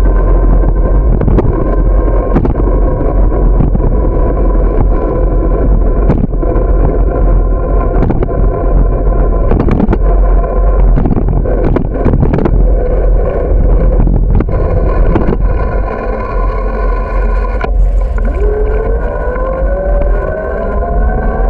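Riding noise from a bicycle-mounted camera on rough asphalt: heavy wind buffeting and road rumble, with repeated knocks as the bike goes over cracks. A steady humming tone runs through it and rises in pitch near the end.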